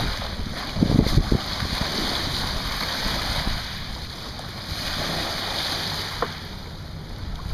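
Sea waves washing and breaking along the shore, with wind rumbling on the microphone, strongest about a second in.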